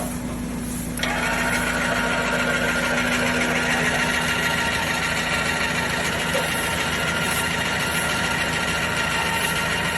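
A 12-volt electric car jack's motor switching on about a second in and running steadily, over a low steady hum.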